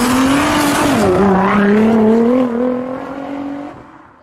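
Car engine running at high revs, its note dipping about a second in and then climbing slowly, fading out near the end.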